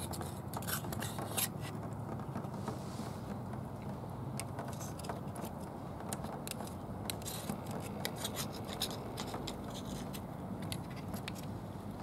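Small knife blade scraping and clicking against the inside of a razor clam shell, an irregular string of short ticks and scrapes, as the clam's muscles and membrane are cut free from the shell. A steady low background noise runs underneath.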